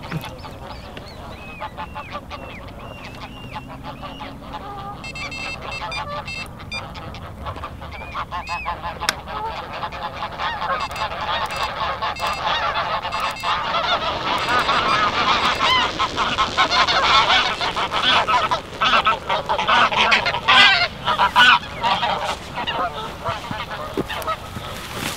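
A flock of geese honking, the calls thickening and growing louder through the second half.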